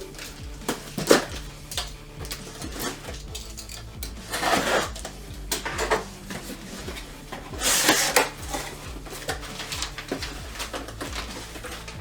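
Irregular clatter and rustling of packaging being handled, with stronger rustling bursts about four and eight seconds in, over quiet background music with a steady low bass.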